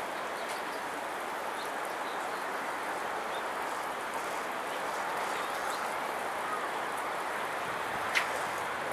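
Steady outdoor background noise, an even hiss with no engine or horn standing out, with a few faint high chirps and one sharp short chirp about eight seconds in.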